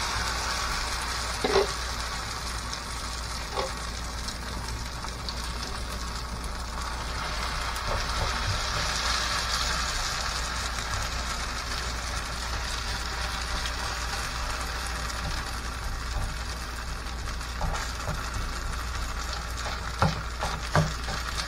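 Shredded potato pancake batter sizzling steadily in hot oil in a frying pan while a spoon spreads and presses it flat. A few light knocks of the spoon against the pan, two of them near the end.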